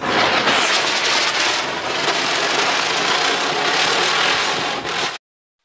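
A Noble Fireworks Ground Chakkar Deluxe ground spinner catching light and spinning on the floor, giving a loud, steady hiss of burning composition. The hiss starts suddenly and cuts off abruptly about five seconds in.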